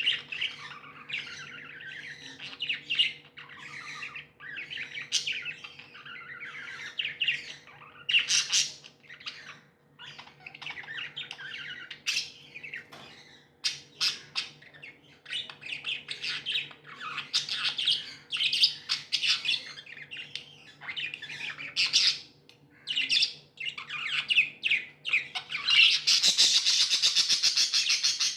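Pet budgerigars chirping, warbling and squawking over one another in quick, overlapping calls. Near the end the calling turns louder into a dense, fast chattering.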